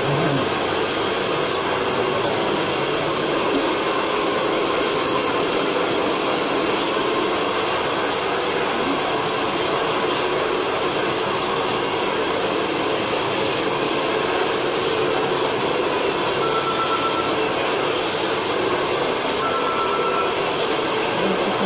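Steady, loud rushing noise, even throughout, with a faint short beep twice near the end, about three seconds apart.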